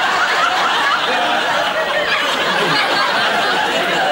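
Studio audience laughing, many voices together, long and loud.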